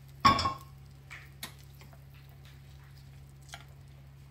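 A single metallic clank of a steel utensil set down on steel, ringing briefly, followed by a few faint taps and scrapes of a spoon stirring in a ceramic bowl.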